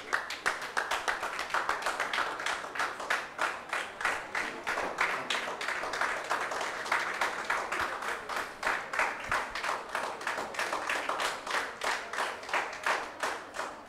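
A small group of people clapping their hands steadily, at about five claps a second.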